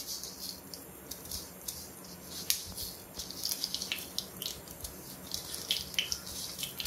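Mustard seeds sizzling and crackling in hot coconut oil in a small frying pan, with many small irregular pops: the oil is hot enough for the tempering.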